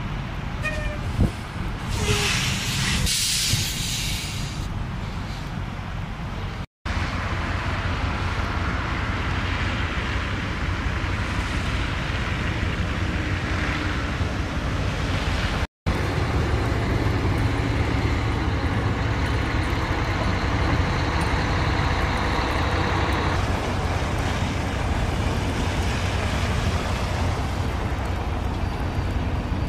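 Slow highway traffic on a slushy road: car and truck engines with tyres in slush, a steady low rumble. About two seconds in, a loud hiss lasts for a couple of seconds. The sound drops out briefly twice.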